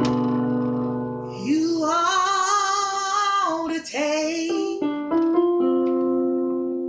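A woman singing gospel over sustained electronic keyboard chords in a piano voice. Her voice slides up into a long held note with vibrato about a second and a half in and breaks off before the end, leaving the keyboard chords sounding alone.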